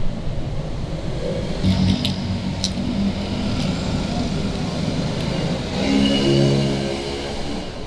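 Street traffic rumble: a steady low hum of passing vehicles, with a few light clicks about two seconds in and a louder pitched hum near six seconds.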